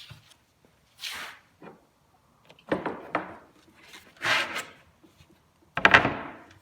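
A rag wiping melamine cabinet panel edges and the panels being handled: four short separate swishes, two of them with sharp knocks.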